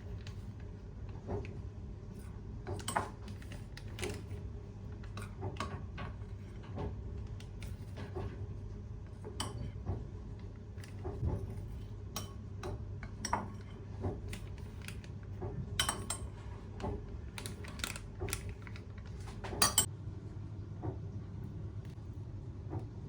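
Kitchen dishes and utensils clinking and knocking in irregular small taps, with a sharper clatter near the end, over a low steady hum.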